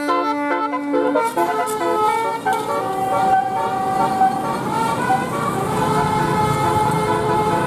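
Telolet bus horn, a bank of multi-tone air horns, playing a tune: several notes sounding together in chords that change pitch in steps, with a long held low note near the start, over a steady background noise.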